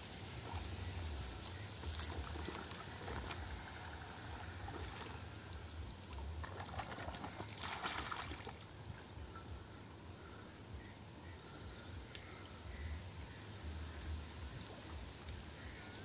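Faint water splashing and trickling at the river's edge, with a brief louder splash about eight seconds in. A steady low wind rumble runs on the microphone underneath.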